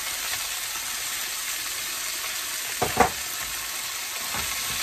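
Diced chicken and onions sizzling steadily in a hot wok while a wooden spatula stirs them, with two sharp knocks of the spatula against the pan about three seconds in.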